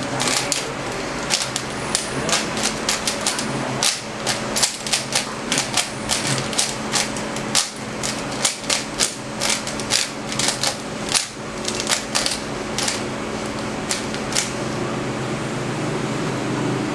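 A 3x3 Rubik's cube being turned rapidly by hand: quick, irregular clicks and clacks of its plastic layers, stopping about two and a half seconds before the end, over a steady low hum.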